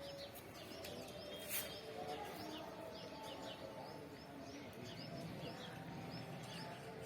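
Many small birds chirping, short high chirps overlapping continuously. A single sharp click comes about one and a half seconds in.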